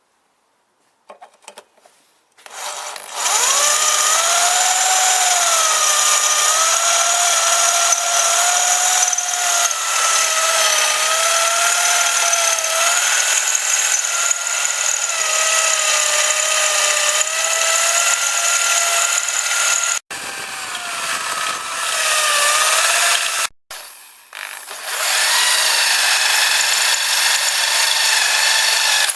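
Electric drill boring out a ball-joint rivet: a loud high whine whose pitch wavers as the bit is loaded. It starts about two and a half seconds in, stops briefly twice near the end and starts again.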